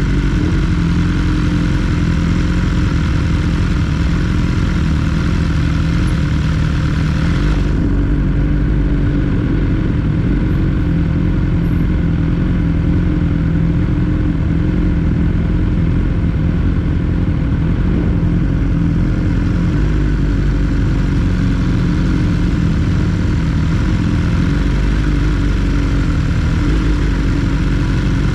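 BMW S 1000 R's inline-four engine running at a steady speed while the bike is ridden, the pitch holding level throughout. A high hiss over it drops away suddenly about eight seconds in.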